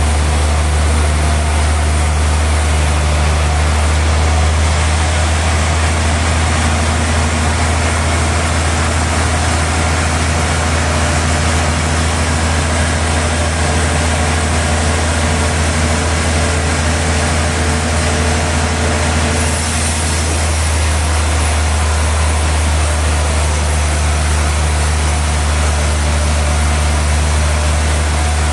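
Sawmill machinery running steadily, with a deep hum under a dense hiss. About two-thirds of the way through the sound shifts: one mid-pitched tone stops and a higher hiss comes in.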